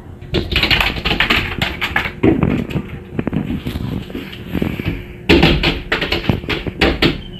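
Rapid, irregular tapping and clattering in two dense bursts, with a short lull a little past halfway.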